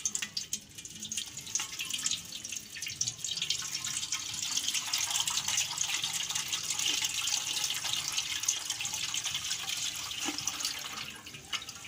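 Lassi (thin yogurt buttermilk) being poured from a plastic bag through a steel mesh strainer into a pot: a steady splashing pour of liquid that eases off near the end.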